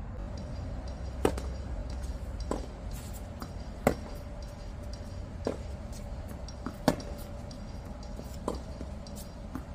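Tennis balls struck by rackets in a baseline rally: about six sharp pops, roughly one every one and a half seconds, with every other one louder. The loud ones are the nearer player's shots and the fainter ones come from the far end of the court.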